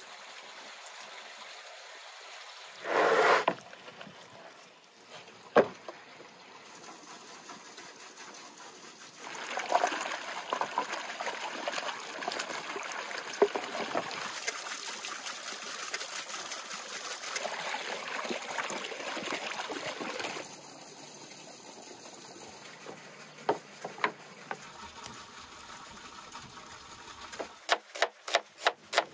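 Water running for about ten seconds, beginning about a third of the way in. A short louder noise and a click come before it, and a quick series of sharp knocks starts near the end.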